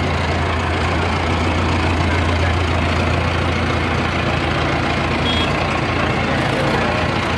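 Mahindra tractor's diesel engine idling steadily.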